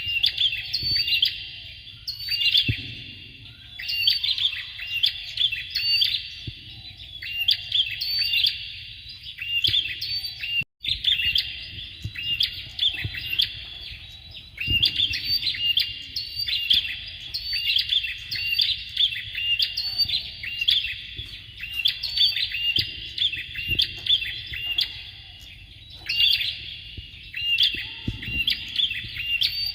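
Bar-winged prinia (prenjak) singing in repeated phrases of quick high notes, each a second or two long with short pauses between. The sound cuts out for a moment about ten seconds in.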